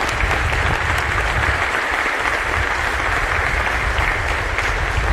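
Audience applauding steadily, a continuous patter of clapping across a large aircraft hangar.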